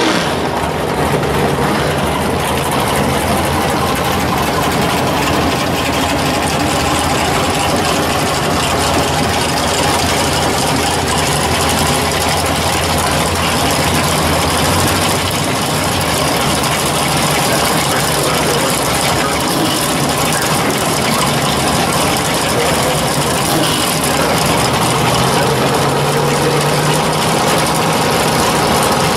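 Engine of a first-generation Chevrolet Camaro drag car idling steadily and loudly.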